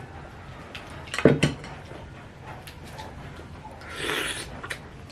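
Eating utensils clinking and clattering against a dish while noodles are eaten, with a loud cluster of clinks a little over a second in and a short breathy rush about four seconds in.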